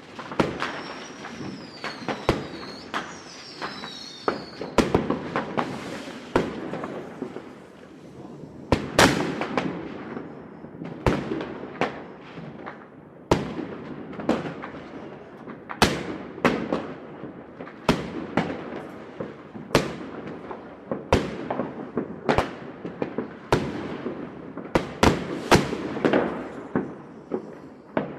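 Fireworks going off in a city: irregular sharp bangs and crackles, one every second or so, each echoing away. A wavering high whistle sounds for a few seconds about a second in.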